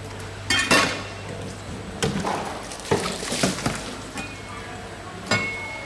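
A series of knocks and thuds as a whole mahi-mahi is handled and shifted on a plastic cutting board, with a few sharp bangs spread through.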